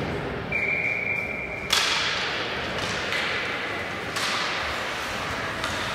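Youth ice hockey play in an echoing rink: two sharp hits of stick, puck or boards, about two and a half seconds apart, each trailing off into the hiss of skates on the ice. A short steady high tone sounds for about a second near the start.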